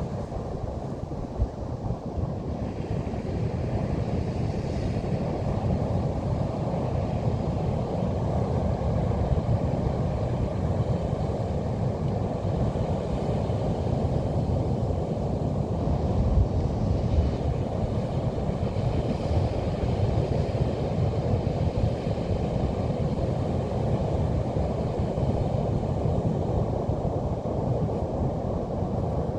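Steady low rumble of ocean surf with wind buffeting the microphone, heaviest in the low end with a faint hiss above it.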